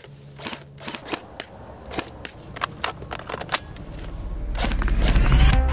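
G&G F2000 airsoft electric rifle firing: a short rapid burst at the start, then single sharp shots in quick, irregular succession. Under it, a low synth drone and an electronic music build-up swell steadily louder toward the end.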